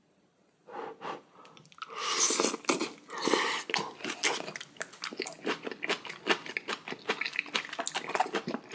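A person eating a mouthful of spicy braised kimchi close to the microphone: two loud slurps about two seconds in, then steady wet chewing with many quick smacks.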